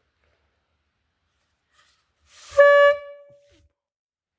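Air horn stuck into a dirt bike's exhaust pipe, blown by mouth: a rush of breath, then one short, steady honk of about half a second, a little over two seconds in.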